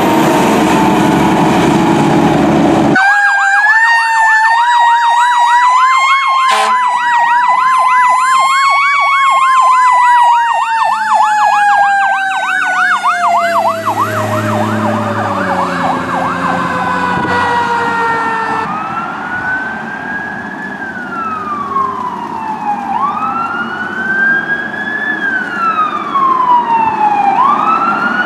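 Fire engine sirens: a fast electronic yelp layered over a slowly rising and falling wail, then, after a cut about two-thirds of the way in, a wail siren rising and falling about every four seconds.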